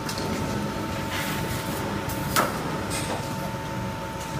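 Hydraulic CNC turret punch press running with a steady hum in a factory, broken by a few scattered knocks, the loudest about two and a half seconds in.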